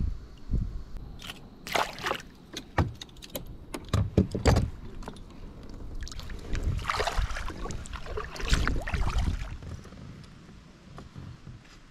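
Clicks and knocks of fishing gear being handled in a kayak, coming in quick clusters, then a few seconds of rushing, splashy noise that fades out.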